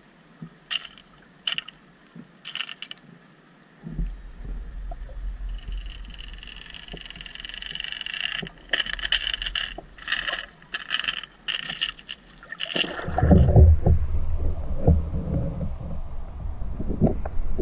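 Underwater camera audio: a few sharp clicks early on, then a stretch of rapid ticking and clicking over a water hiss. Low rushing water takes over for the last few seconds.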